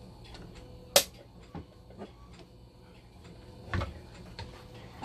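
Handling knocks from a dialysis machine blood pump module being turned over on a desk: a sharp click about a second in, a few light taps, and a dull knock near four seconds, over a faint steady hum.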